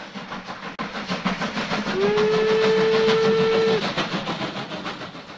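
Steam locomotive chuffing rapidly and evenly, growing louder and then fading away, with one long whistle blast of nearly two seconds in the middle that rises slightly in pitch as it starts.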